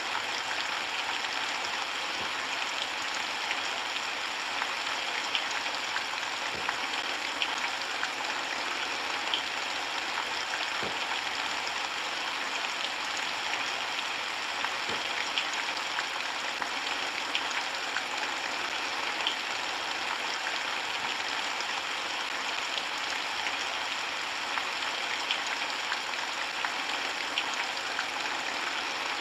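Steady rainfall, an even hiss with scattered individual drops ticking.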